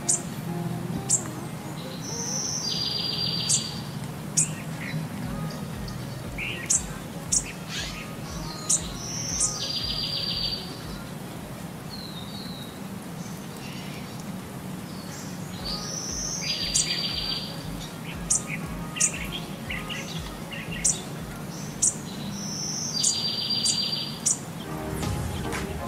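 Small birds chirping, with one trilled call, in a short recording that repeats about every seven seconds over a low steady hum.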